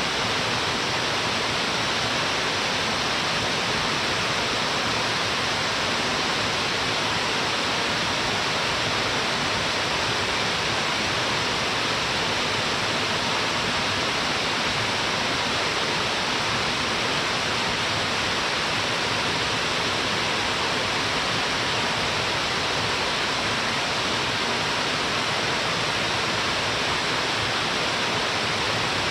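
A waterfall falling into a wide plunge pool: a steady, even rush of water.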